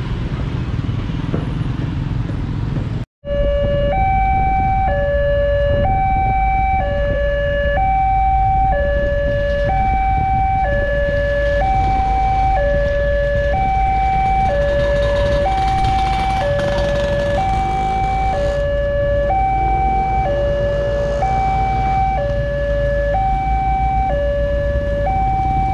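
Motorcycles riding over a railway level crossing, then the crossing's warning alarm sounding, which signals an approaching train. The alarm is two tones, low and high, alternating about once a second, over a low rumble.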